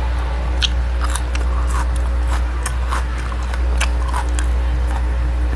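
Close-miked chewing of a burger: irregular wet mouth clicks and smacks, about two a second, over a steady low hum.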